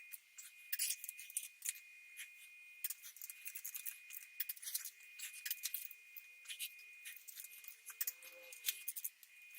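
Light metallic clicks and scrapes, sharp and irregular, from small engine parts being handled during a V8 engine rebuild.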